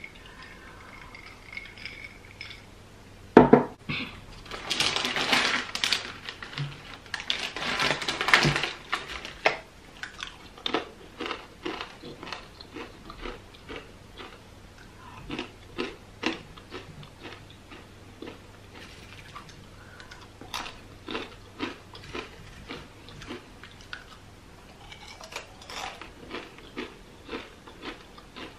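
Plantain chips being bitten and chewed by hand, close-miked: a long run of crisp crunches, about one or two a second. Before the crunching there is a sharp knock a few seconds in, then two spells of crackling rustle.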